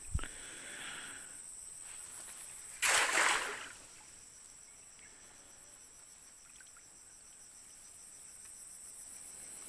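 A cast net landing on a pond with a brief splash about three seconds in, over a steady high buzzing of insects.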